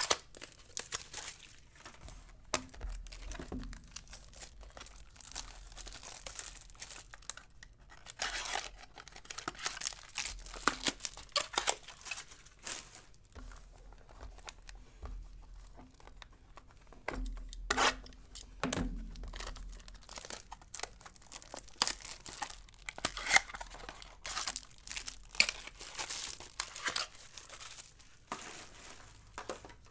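Foil trading-card pack wrappers and card packaging crinkling and tearing in irregular bursts of rustling, with a few soft knocks as boxes and packs are handled.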